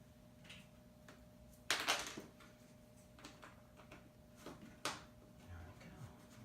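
Luxury vinyl tile being handled and set down on the floor adhesive: a sharp knock about two seconds in, the loudest sound, another near the five-second mark, and a few light clicks and taps between.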